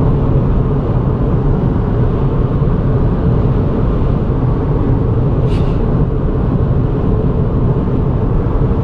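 Steady road and engine noise inside the cabin of a Toyota Yaris cruising at about 65 mph on a dual carriageway.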